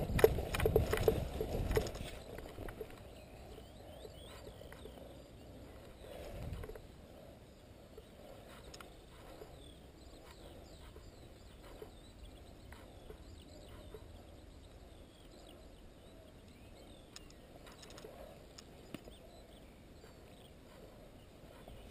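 Footsteps and clothing and gear rustling through long grass during the first couple of seconds, then faint outdoor ambience with a few scattered faint clicks.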